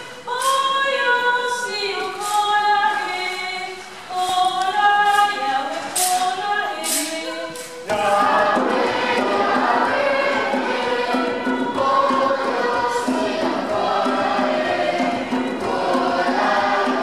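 Children's choir singing a church song. About halfway through the sound cuts abruptly to a fuller, denser passage of many voices.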